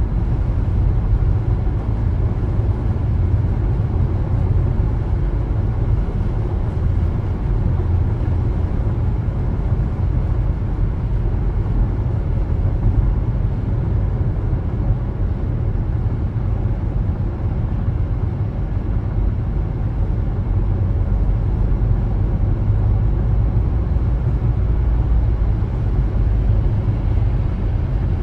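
Car driving, heard as a steady low rumble of tyres on the road and the running engine.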